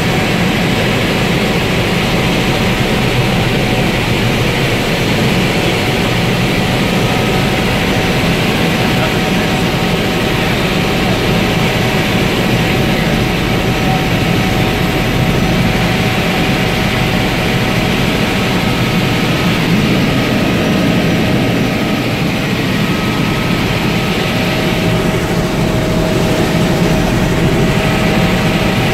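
Helicopter in steady flight heard from inside its cabin: the engine and rotor drone without a break, with faint steady whining tones above the drone.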